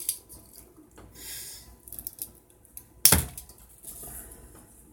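Light clicks and taps of a small wire spool and tools being handled on a paper-covered workbench, with a short rustle about a second in and one sharp knock about three seconds in.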